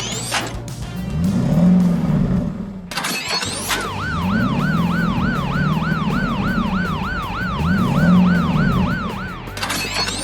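A fast warbling siren, about four wails a second, starts a little under four seconds in and stops near the end. It plays over music with a low swooping tone that repeats every few seconds.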